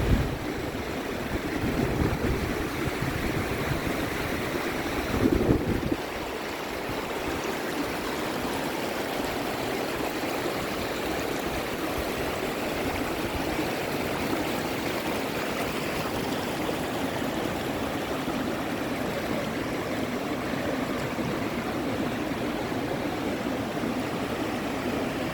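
River water rushing steadily. Wind buffets the microphone in low gusts for about the first six seconds, then dies away.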